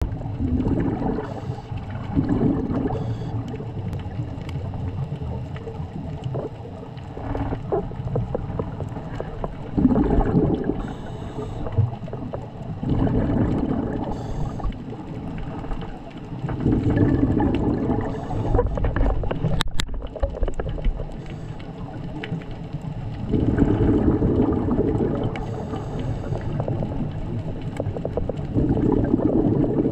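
Scuba regulator breathing recorded underwater: bubble noise from the exhalations swells in irregular bursts every few seconds over a steady underwater hiss. There is one sharp click about two-thirds through.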